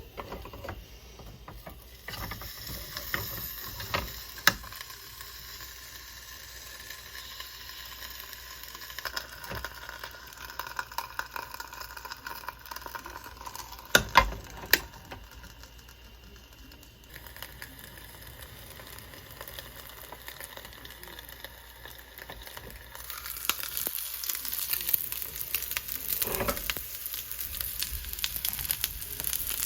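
Frozen karaage sizzling in a hot sandwich maker, with scattered crackles and a few sharp metallic clacks about halfway through. The sizzling grows louder and denser in the last few seconds.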